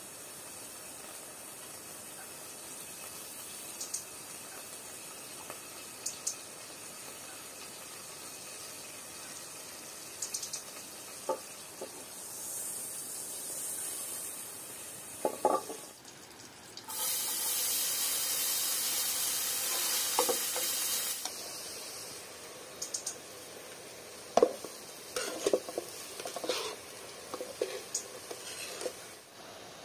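Cooking sounds from pots and pans: a few clinks of metal pots, a loud steady hiss for about four seconds midway, then a metal ladle scraping and clinking against a metal pot as cooked rice is spooned in from a colander near the end.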